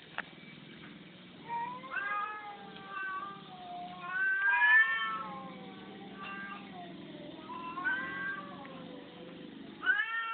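Cat meowing over and over: about six separate drawn-out meows that bend in pitch, the loudest about halfway through, over a faint low hum.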